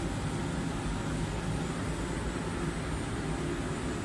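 Richpeace automatic zigzag sewing machine running, a steady low mechanical drone.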